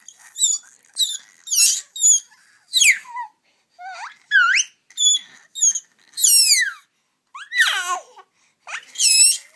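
Young baby babbling and squealing in reply, a string of about a dozen short, high-pitched calls, each sliding up or down in pitch, with brief pauses between them.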